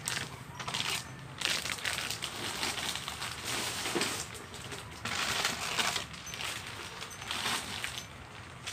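Plastic snack packets and wrappers crinkling and rustling as they are handled, in several irregular bursts.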